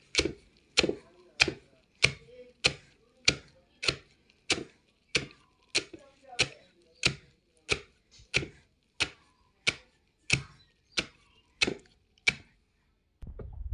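Wooden pestle pounding fried peanuts and chilies in a mortar, crushing them for peanut sauce: about twenty evenly spaced strikes, roughly one and a half a second, that stop near the end.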